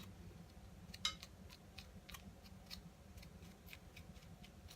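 A knife cutting into a pumpkin and scraping out its seeds and pulp, heard as faint, irregular clicks and scrapes, about two or three a second, with one a little louder about a second in.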